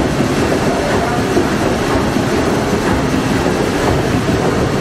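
Liberty ship's triple-expansion steam engine running at full speed, a loud, steady mechanical clatter of its moving parts heard up close in the engine room.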